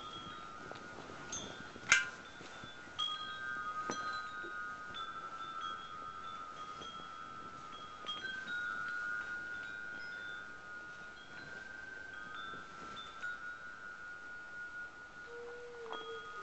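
Chimes ringing: several overlapping high tones that sustain and ring on, with fresh strikes now and then, the loudest about two seconds in. Near the end a lower tone steps down in pitch.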